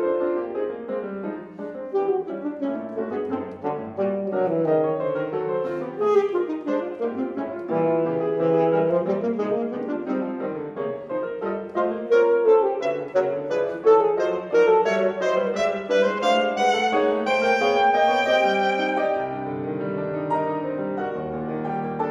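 Alto saxophone playing a quick-moving classical line with grand piano accompaniment. A few seconds before the end the saxophone climbs to high notes, and then the music is a little quieter.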